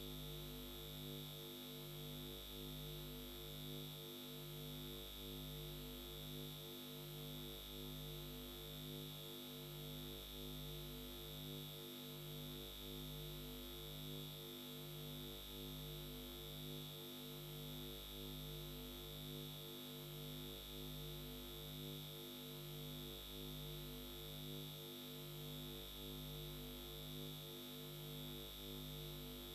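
Faint, steady electronic drone: a low hum of several tones pulsing evenly in step, under a constant high-pitched whine.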